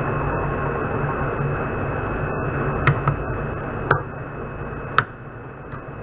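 Metal lathe running during a thread-cutting pass, with a faint steady whine. A few sharp metallic clicks and knocks come about three, four and five seconds in, and the running noise drops noticeably after about four seconds.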